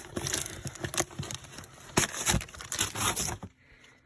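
Packaging tape and wrapping being ripped and crinkled as a box is pried open with a small poker tool, a run of scratchy tearing and crackling that stops about three and a half seconds in.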